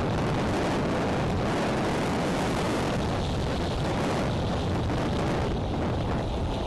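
Strong gusty wind blowing across the nest-cam microphone: a loud, continuous rush that eases slightly about halfway through.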